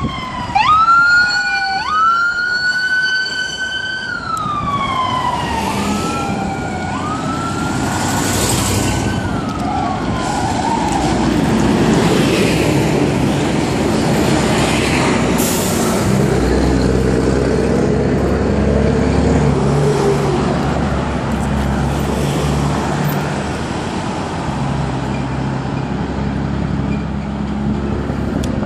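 A police car siren wailing in rising and falling sweeps for the first several seconds, then a convoy of vehicles passing close by, led by the steady drone of a large coach bus engine.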